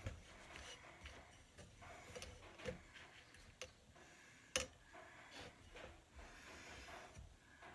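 Faint, scattered clicks and light knocks of small parts being handled during assembly, with one sharper click about four and a half seconds in.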